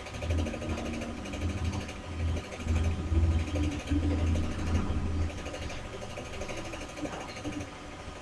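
A low mechanical hum that swells and drops unevenly for about the first five seconds, then settles to a fainter steady background.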